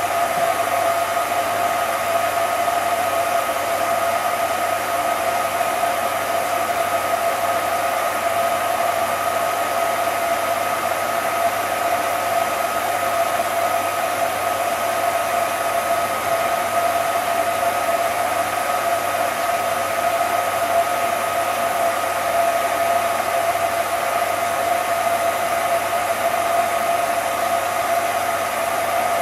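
Cine film projector running: a steady mechanical whirr with two constant hum tones over a hiss, unchanging throughout.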